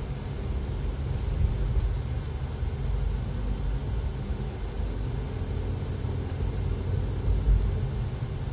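Steady low rumble of a car driving slowly along a city street, engine and tyre noise heard from inside the cabin.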